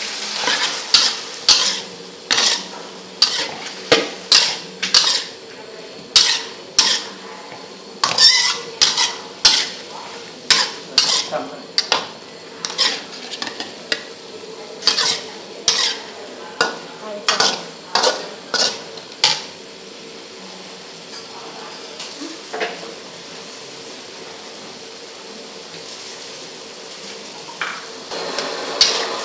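A metal utensil strikes and scrapes a frying pan about twice a second while pork and pickled lettuce sizzle in the oil. About two-thirds of the way through the strokes stop and the steady sizzle carries on alone.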